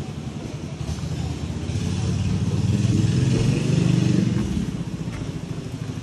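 A motor vehicle's engine running. It grows louder from about a second and a half in and fades again after about four seconds, as if it is going by.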